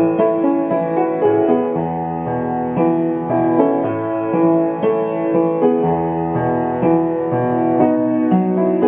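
Soft background piano music: slow sustained chords over a low bass note.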